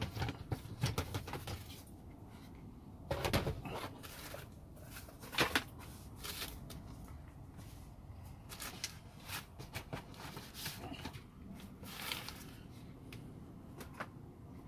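Items being rummaged through in a plastic storage bin: plastic bags rustling, cables and small objects knocking against the bin and being set down on a table. Irregular knocks and rustles, with the loudest clatters about three and five seconds in.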